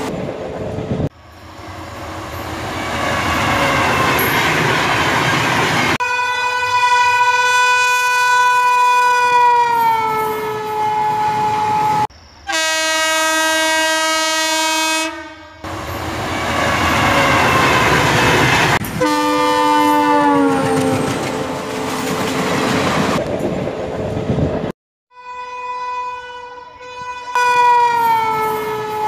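Recorded sound of a real passenger train, spliced in several pieces: the train running with a rumbling clatter, broken by long multi-tone horn blasts. Most of the blasts drop in pitch as the train passes, and one blast near the middle holds a steady pitch.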